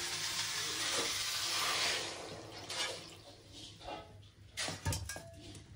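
Water poured from a steel bowl into a hot kadai of cut vegetables, hissing loudly for about two seconds and then dying away as the dalma is set to boil. A few light knocks of steel utensils follow.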